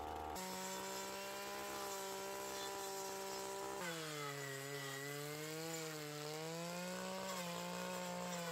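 Petrol brush cutter engine running at high revs, its pitch dropping about four seconds in and then wavering up and down.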